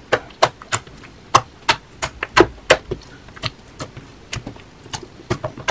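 Clear slime mixed with glitter being stretched and poked by hand, giving an irregular run of sharp sticky clicks and pops, about two or three a second.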